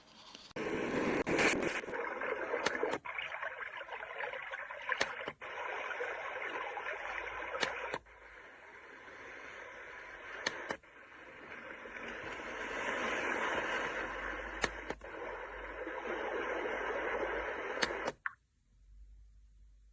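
iDealSleep white noise machine playing noise-like sleep sounds through its small speaker. Every few seconds a pair of button clicks switches it to another sound, and it cuts off suddenly near the end.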